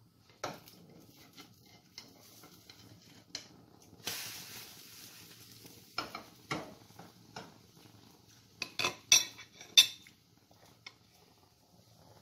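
Spatula and frying pan clinking and scraping as a pancake is flipped, with a short sizzling hiss about four seconds in and a quick run of louder metal clatters near the end.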